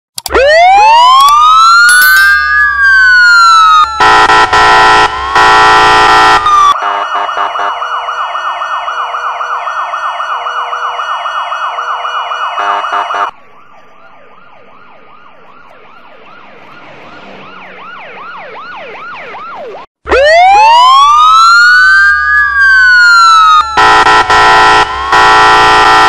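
Electronically processed police siren sound effect, layered into several pitch copies: wails rise and fall, then a loud steady blaring tone, then a fast yelp warble. About halfway through it drops to a quieter wobbling version that slowly grows louder, and near the end the rising wails and the blaring tone come back.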